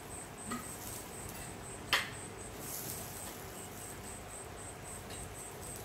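Crickets chirping, a high pulsing note repeating about three times a second. A single sharp click about two seconds in.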